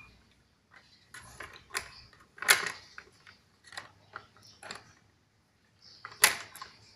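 Irregular clicks and knocks of hard objects, with two louder knocks about two and a half seconds in and near the end.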